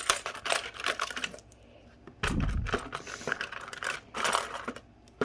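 Small plastic tools clicking and clattering as they are handled, with brief rustling of packaging and a dull bump about two seconds in.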